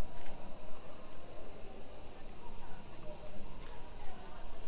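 Steady, high-pitched chorus of summer insects, a continuous shrill drone.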